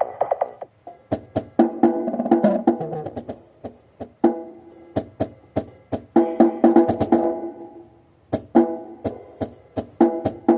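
Music played through a small homemade speaker box with a 2-inch driver as a sound test: sharp percussive clicks on a steady beat, with short phrases of pitched notes.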